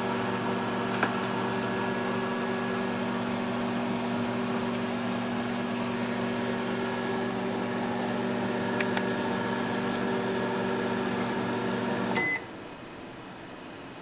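Microwave oven running with a steady electrical hum. About twelve seconds in it gives a short beep and the running stops.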